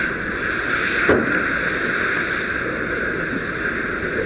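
Fire hose stream hitting a burning car, a steady loud hiss of spraying water and steam. A single sharp knock about a second in.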